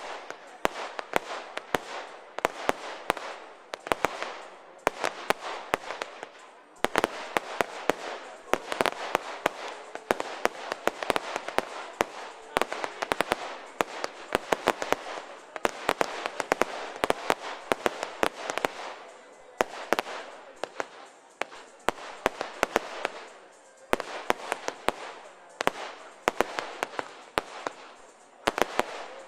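Fireworks display: a continuous barrage of sharp bangs and crackling bursts, many per second, with a few brief lulls.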